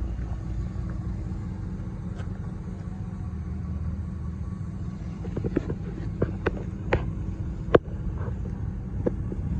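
A low steady rumble, with irregular light footsteps on asphalt from about five seconds in.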